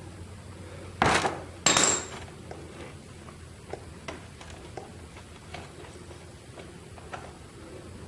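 Two sharp metallic clanks about a second in, the second with a brief high ring, then a few faint ticks and taps: metal tools or parts being handled during an oil drain on a motorcycle.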